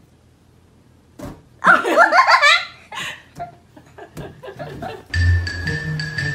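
A person bursting into loud, high-pitched laughter for about a second, followed by a few light knocks; background music with held notes starts about five seconds in.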